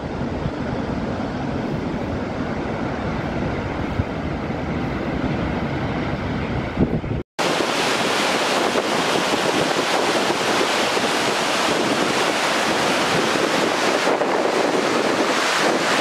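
Steady rushing noise of the Dettifoss waterfall heard from across the canyon, deep and rumbling, with wind on the microphone. About seven seconds in it cuts abruptly to a brighter, hissing rush of white water in the glacial river close at hand.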